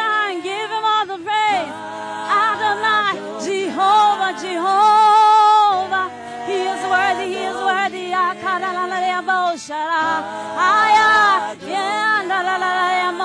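Church praise team singing a gospel worship song in vocal harmony, a woman's voice leading over the backing singers, with long held notes and vibrato.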